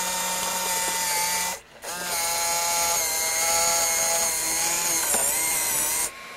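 JVC VHS-C camcorder's tape transport mechanism running with a steady motor whine. It stops briefly about one and a half seconds in, starts again with its tones sliding up to speed, and cuts off just before the end, as play and pause are cycled. The freshly oiled idler pulley, once stiff, now turns freely and the transport works as it should.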